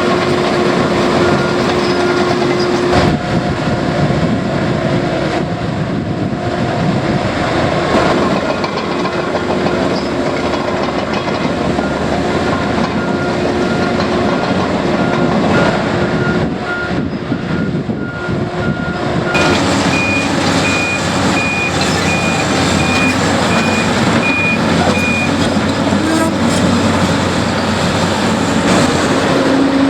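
Diesel engines of heavy earthmoving machines running, with backup alarms beeping: a lower-pitched alarm at the start and again through the middle, then a higher-pitched alarm for several seconds after it.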